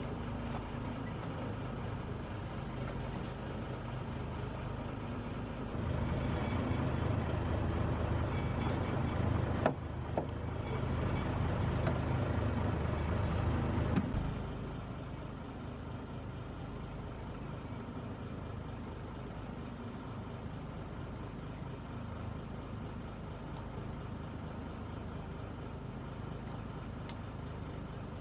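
Fishing boat's engine running steadily, louder for several seconds in the middle, with a couple of brief knocks.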